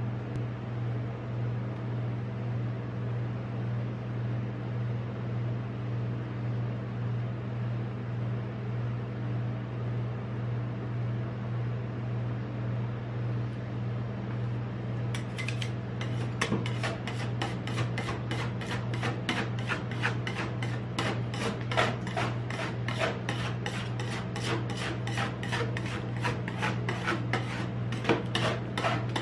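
Steady hum of a rolled-ice-cream cold plate's refrigeration. About halfway through, steel spatulas start scraping and chopping frozen ice on the metal pan in quick, repeated rasping strokes.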